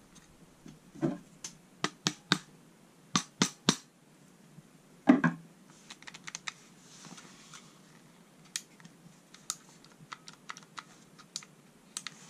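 Sharp clicks and knocks of a King Arms Black Rain Ordnance airsoft M4 rifle being handled and its parts fitted together, a scattered run of clicks with the loudest knock about five seconds in, then lighter clicks and taps.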